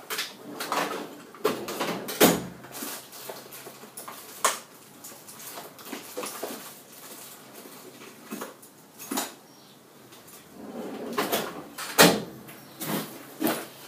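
Irregular knocks and clicks of a machinist rummaging for and handling micrometers by hand; the lathe is stopped. The loudest knocks come about two seconds in and about twelve seconds in.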